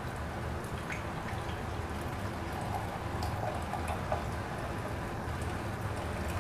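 Hot ginger-and-cola brew poured through a strainer into a glass, trickling and dripping steadily, with a few faint ticks.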